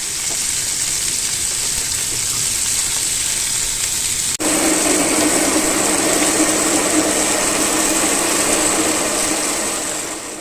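Chicken satay sizzling on a grill, a steady hiss. About four seconds in the sound cuts to a louder stretch of sizzling with a steady low hum under it.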